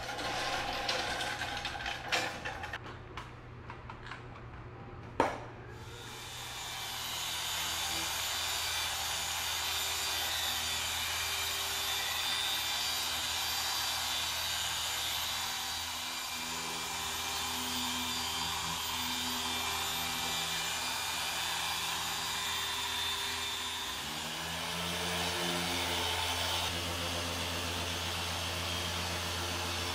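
A few knocks and a sharp click, then a dual-action polisher with a foam pad starts up about six seconds in and runs steadily, polishing car paint. Its whirring hum shifts in pitch near the end.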